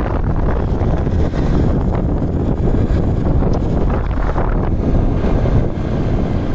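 Wind buffeting the microphone: a loud, steady rumble of wind noise, heaviest in the low end.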